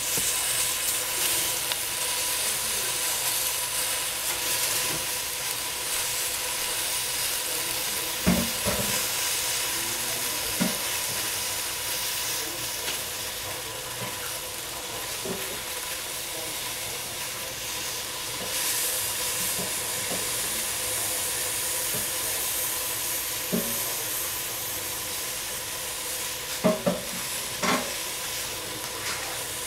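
Bok choy sizzling and steaming in a stainless steel pot over a gas flame: a steady hiss, with a few soft knocks or pops, two of them close together near the end.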